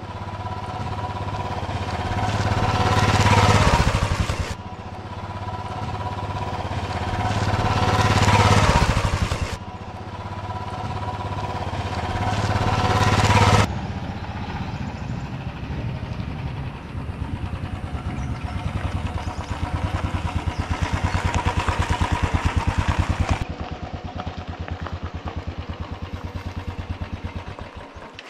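Pickup truck engine running hard as the truck drives through a shallow river, swelling up in revs three times and then running on more evenly with a fast, pulsing beat.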